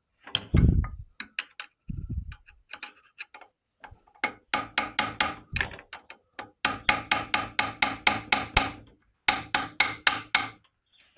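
Runs of sharp metallic clicks and taps, about five a second, with a slight ring, from hand tools working on the metal parts of a small Briggs & Stratton engine being taken apart. There are two dull low thumps in the first two seconds.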